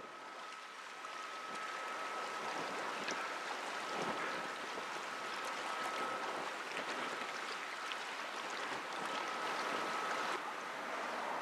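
Steady outdoor river ambience: an even hiss that swells over the first couple of seconds, with a faint steady high whine running through it and a few faint ticks.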